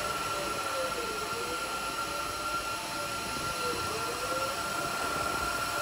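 FDM 3D printer printing, its stepper motors whirring in a pitch that rises and falls in repeated arcs, over a steady hiss and a constant high whine.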